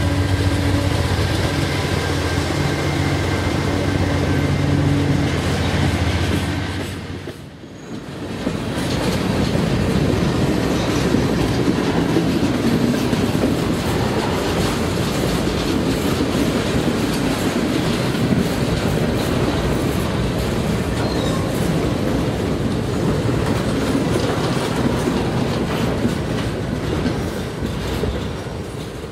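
Diesel freight locomotives pass with their engines running, a steady low hum. After an abrupt cut about seven seconds in, a string of empty centerbeam flatcars rolls past with a steady rumble and wheels clacking over the rails.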